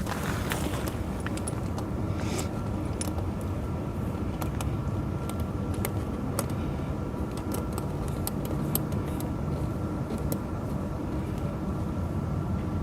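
A steady engine-like hum, likely the tractor idling, with scattered light metallic clinks of the tyre chains as they are handled and hooked up.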